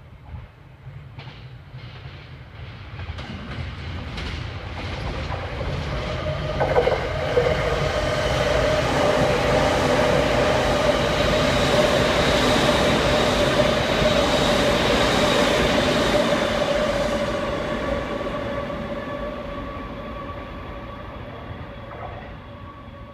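Electric commuter train on a Saikyo Line rapid service passing through a station at speed without stopping. It grows from the distance to a loud pass-by of wheel and rail noise with a steady motor whine, then fades away.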